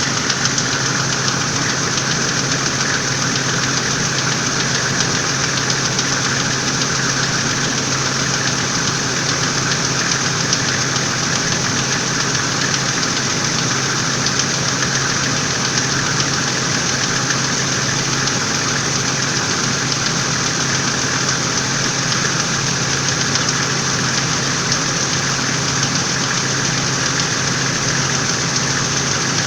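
Toyota Land Cruiser engine idling steadily when cold, with a sharp, ringing knock (звонкий стук) running through it.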